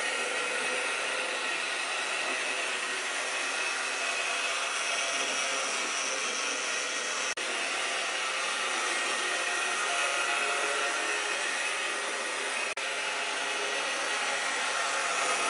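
Rivarossi HO-scale Norfolk & Western Y6b 2-8-8-2 steam locomotive model running on its track: a steady whirring of the electric motor and gearing, with the wheels rolling on the rails. The sound cuts out for an instant twice.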